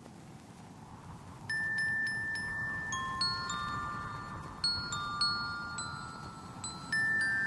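Background music: a slow melody of bell-like chime notes, each ringing on, starting about a second and a half in.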